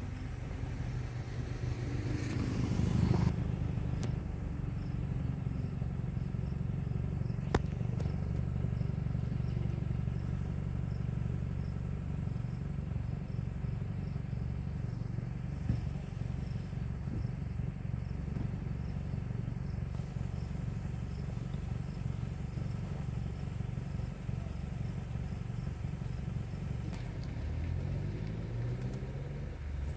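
Vehicle engine idling steadily, with a brief louder rush about two seconds in; near the end the engine note rises as it is revved.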